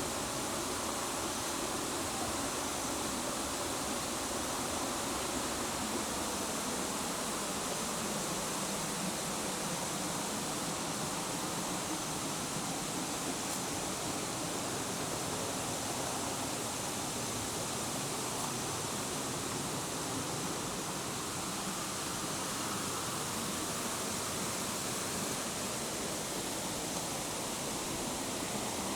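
Waterfall's falling water rushing steadily, an even, unbroken wash of sound.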